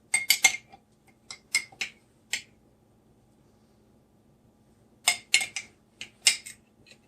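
Sharp clinks and taps of a utensil against a dish in three short clusters: a quick run near the start, four taps a little over a second in, and another run about five seconds in.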